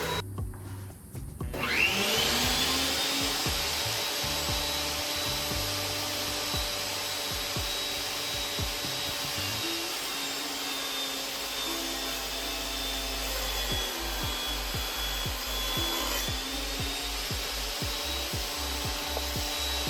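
Table saw motor spinning up with a rising whine about two seconds in, then running steadily while sawing a cherry board's edge straight.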